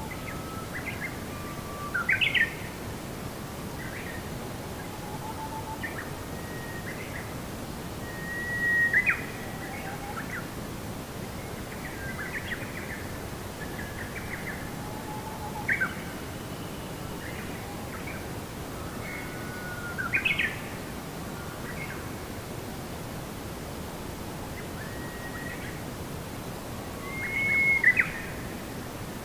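Birds chirping and calling in short, quick phrases, with five louder calls spaced several seconds apart, over a steady background rush.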